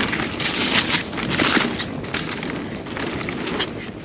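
Rough, rushing outdoor noise with crackles in uneven surges: wind and riding noise on a mountain biker's camera microphone out on the trail.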